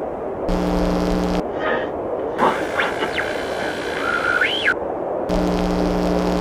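Electronic glitch sound effects: three bursts of static that cut in and out abruptly. The first and last carry a steady low buzzing hum, and the middle one carries a whine that glides up and down.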